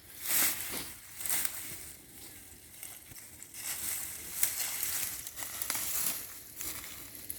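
Hands and a tool digging through wood-chip mulch and soil to pull up sweet potatoes: irregular rustling and crunching, in uneven bursts.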